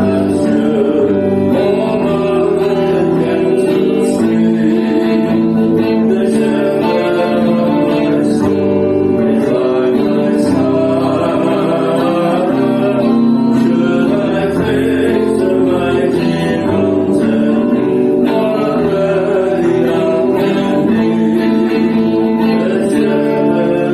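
Worship song: singing over steady acoustic guitar strumming.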